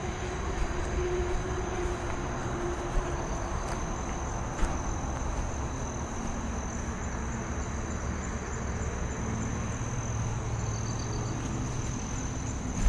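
Crickets trilling steadily at a high pitch, over low rustling noise and a few faint knocks.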